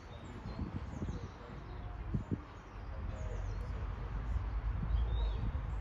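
Small birds chirping: short, high, falling chirps scattered through, over a steady low rumble that rises a little after a few seconds.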